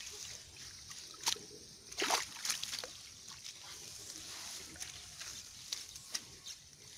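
Water sloshing and splashing in a bamboo-framed hand net as the catch and pond weed are sorted through by hand, with scattered wet clicks and a few louder splashes, the loudest about two seconds in.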